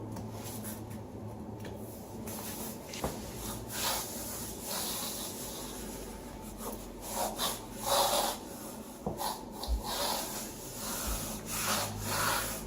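A vinyl peel-and-stick floor tile being rubbed and pressed down onto the floor, in irregular scuffing strokes that grow busier in the second half.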